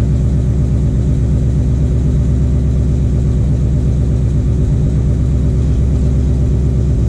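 Ford Mustang S550 GT's 5.0-litre V8 idling steadily just after start-up, an even low pulsing rumble.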